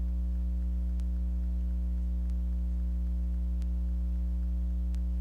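Steady electrical mains hum, with four faint ticks about a second and a bit apart.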